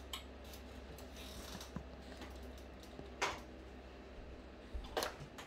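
Metal ladle clinking against a cooking pot and a china bowl as soup is ladled out: a few scattered clicks and knocks, the sharpest about three seconds in and a couple more near the end, over a low steady hum.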